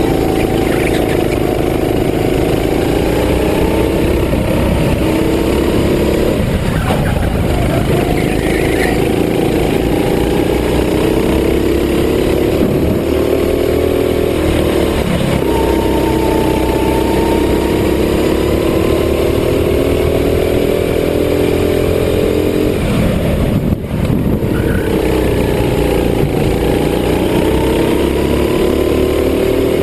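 Go-kart engine running hard, heard from the kart's own onboard camera. Its pitch dips and climbs again several times as the kart slows for corners and accelerates out of them.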